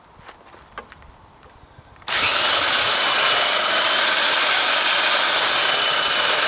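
A few faint clicks, then a belt sander switches on about two seconds in and runs steadily with a loud hissing noise and a faint high whine.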